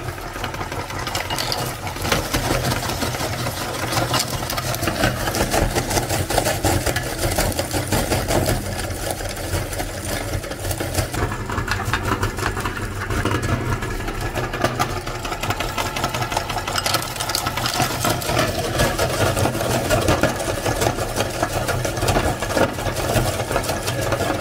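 Electric meat grinder running with a steady low motor hum while it crushes hard lollipops, the candy cracking and crunching densely throughout.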